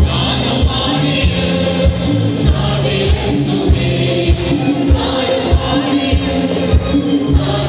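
Live Christian worship music: a band playing a song with group singing over it and a steady beat.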